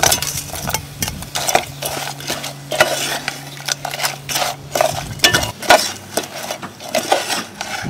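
A metal utensil stirring crab pieces in a pot of curry sauce, with repeated scrapes and clinks against the pot and the shells.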